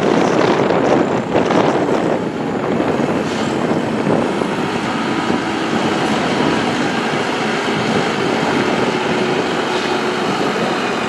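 JCB 3CX backhoe loader's diesel engine running, a steady mechanical noise with a few knocks in the first few seconds.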